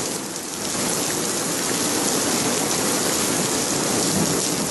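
Heavy rain pouring down onto a flooded street and standing water, a steady loud hiss.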